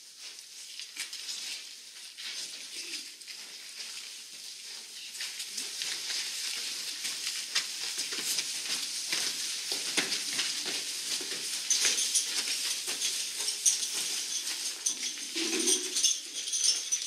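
Dense crackling, hissing rustle with many small clicks from a group of crouching children in crepe-paper streamer costumes, growing louder over the first half.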